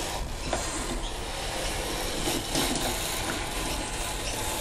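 Rough scraping and rubbing of the wooden board under a model plane as the board and plane are turned sideways by hand, with a few faint clicks.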